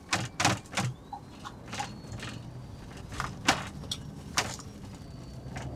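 Cabin sound of a double-decker highway bus rolling slowly: a steady low engine hum with about ten irregular sharp clicks and knocks from the cabin.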